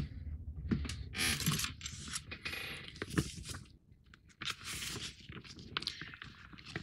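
Irregular rustling and scraping with light clicks as model-kit parts are handled and picked up.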